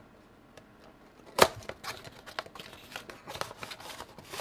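Hands opening a small cardboard card-game box: one sharp snap of cardboard about a second and a half in, then light clicks and rustling of cardboard and packaging.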